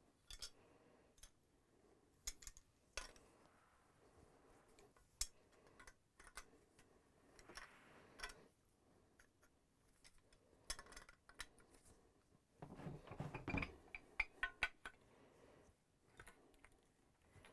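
Faint, scattered metallic clicks and clinks of a wrench and channel-lock pliers being fitted to and turning a brass union piece on a new anode rod, with a busier run of clicking in the later part.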